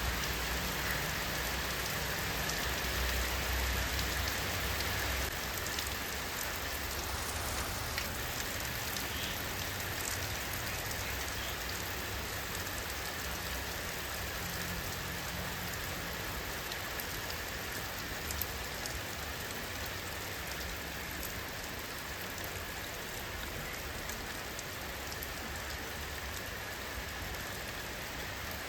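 Steady rainfall: an even hiss of rain with many small drop ticks throughout, over a low rumble that eases after the first few seconds.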